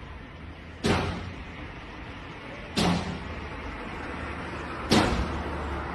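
Heavy blows striking a shop door, three loud bangs about two seconds apart, each followed by a short echo: a break-in attempt on the fruit shop.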